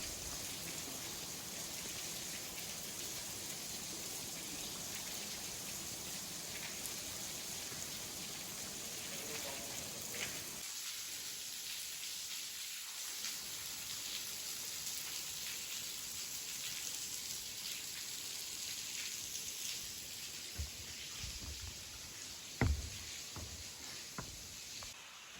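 Steady hiss of water, with scattered small ticks and one louder knock about three-quarters of the way through.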